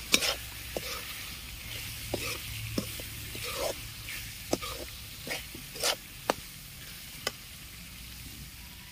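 Metal slotted spoon stirring and scraping a frying tomato masala in a metal kadai, with sharp clinks of the spoon against the pan, over a steady sizzle.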